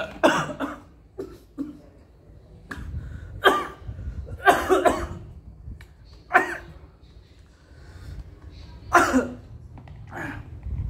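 A man coughing in a fit of sharp, separate coughs, about seven of them a second or two apart.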